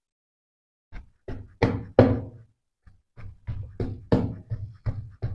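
Hand pestle pounding boiled tender jackfruit pieces on a steel plate to crush them fine: a run of knocks, roughly three a second, starting about a second in.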